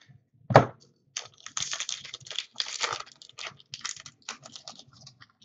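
Foil wrapper of a hockey card pack being torn open and crinkled: a rapid, irregular crackling. A single sharp knock comes about half a second in.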